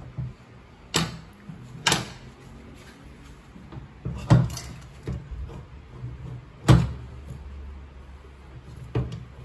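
Irregular knocks and clunks as an engine case half is worked loose and pulled off a four-stroke dirt-bike engine, about five in all, the loudest about two-thirds of the way through.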